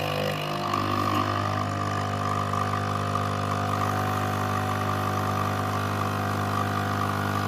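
Krups Nespresso capsule machine's pump running while it brews espresso into a glass cup, a loud, steady buzzing hum.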